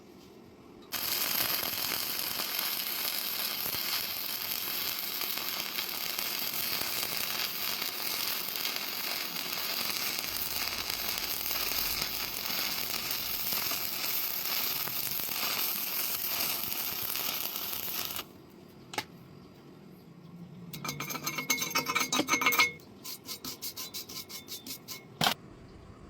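Electric arc welding: a steady crackling sizzle for about seventeen seconds that cuts off suddenly. Then comes a click, followed by a few seconds of rapid metallic tapping and ticking, and a last sharp click.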